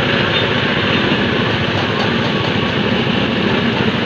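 Motor-driven sugarcane juicer running steadily while stalks of cane are fed between its steel rollers and crushed, a loud, even mechanical drone with a rapid low pulsing.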